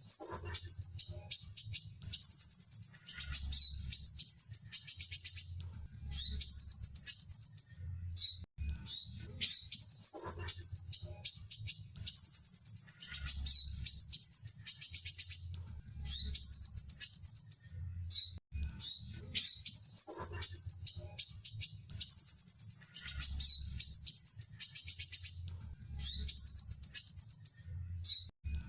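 A sunbird singing: rapid, very high-pitched twittering trills in phrases of one to a few seconds, repeated with short breaks, over a faint low hum.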